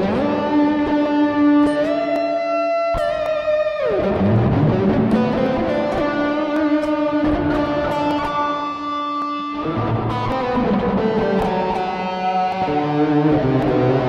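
Electric guitar played through a Harley Benton American TrueTone overdrive and amp-sim pedal, with drive and voice all the way up and reverb added. It plays a lead line of long, held, heavily driven notes, one bent upward, with a slide down in pitch about four seconds in.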